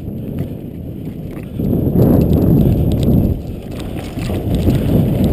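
Mountain bike ridden fast over a rough grassy trail: tyres rumbling and the bike rattling and knocking over bumps, with wind buffeting the handlebar-mounted camera's microphone. The noise grows louder about a second and a half in as the speed picks up.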